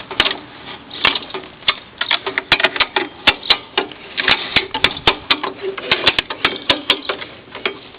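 Hand winch being cranked, its ratchet pawl clicking over the gear in a quick, uneven run of sharp clicks as it pulls a lawn mower up on a wooden lift.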